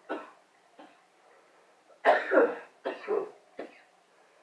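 A person coughing: a short cough at the start and a faint one just after, then a louder run of three coughs about two seconds in.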